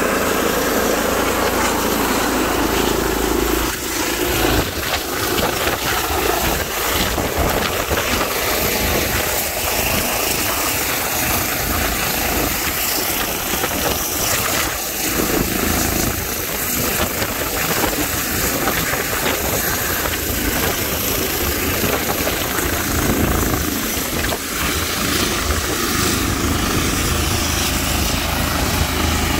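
Medical helicopter descending to land and settling onto the pavement. Its rotor blades and turbine engine run steadily and loudly throughout.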